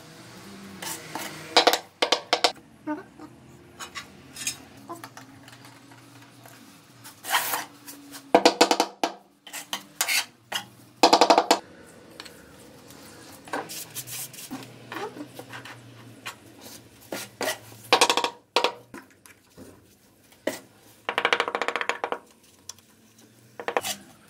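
A small metal hand tool scraping and tapping against ceramic tile and mortar in irregular strokes, with a few longer rasping scrapes, while baseboard tiles are set against a wall.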